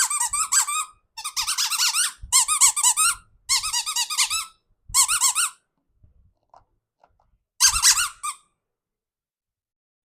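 Squeaky rubber toy being squeezed over and over, giving runs of rapid high-pitched squeaks: four runs in the first half, a pause, then one short run near the end.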